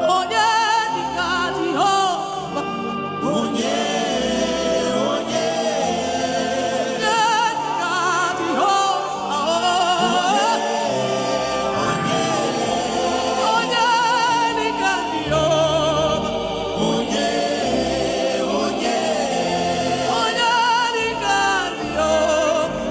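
Gospel worship music: sung vocal lines with heavy vibrato over sustained held chords, with no clear words.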